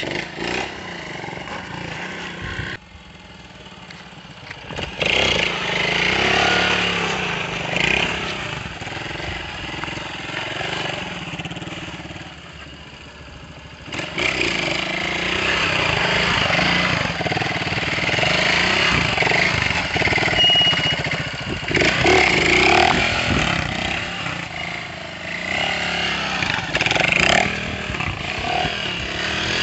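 Small street motorcycle engine revving up and down as the bike is held in wheelies, the pitch rising and falling with the throttle. The sound changes abruptly about three seconds in and again about fourteen seconds in.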